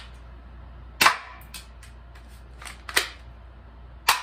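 Cheap plastic P220-replica BB pistol firing three shots, each a sharp snap, about two seconds apart, with a couple of fainter clicks between them.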